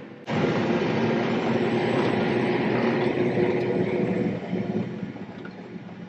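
Tractor engine running hard with the cab rattling, heard from inside the cab while driving fast across a harvested field at about 21 mph. It comes in sharply just after the start and eases off after about four and a half seconds.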